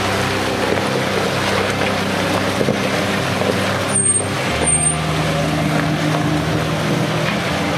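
Off-road vehicle engine running at low speed on a rough trail, its note holding steady and shifting pitch about halfway through as the throttle changes.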